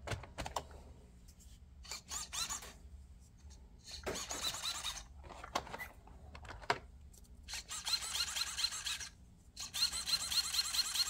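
Losi Mini-T 2.0's brushless motor and drivetrain whining in about four short high-pitched bursts, the last and loudest near the end, with small clicks between, as the truck's wheels are spun on the bench. The truck had just started moving by itself, and the throttle is being tried.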